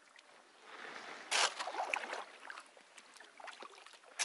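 Inflatable kayak being paddled into thin first ice, about half a centimetre thick: one short splash of a paddle stroke about a second and a half in, faint crackling, then a sudden loud crunching right at the end as the hull starts breaking the ice.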